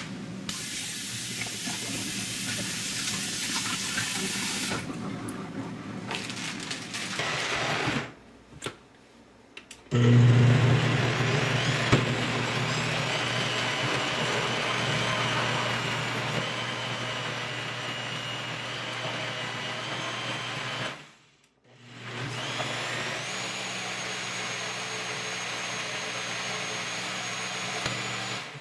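Electric countertop blender running in three long runs. It is switched off and back on twice, starting loudly each time, with a steady motor hum and a high whine over the noise of the blades.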